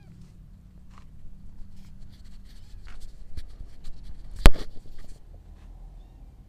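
Camera handling noise: scattered rustles and light knocks, then one sharp, loud knock about four and a half seconds in as the camera is set down on a wooden table.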